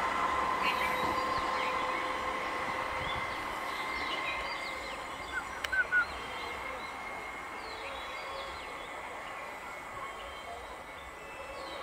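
Train running on the line: rail noise with a steady whine that slowly fades. Birds chirp faintly throughout, with three sharp, loud chirps about halfway through.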